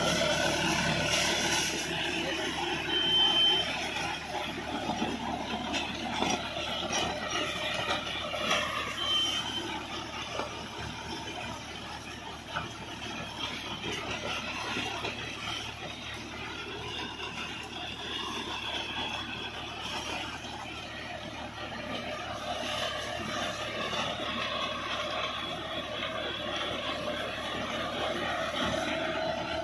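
John Deere 5405 tractor's three-cylinder diesel engine running steadily under load while it drives a Shaktiman rotavator, whose spinning blades churn the soil and chop banana plant stems and leaves into it.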